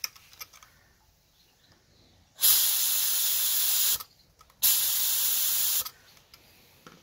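A new paint spray gun on a compressor air line, triggered twice with air only: two steady hissing blasts of about a second and a half each, a short pause between. The gun is being run so that the regulator pressure can be read and set while air is flowing.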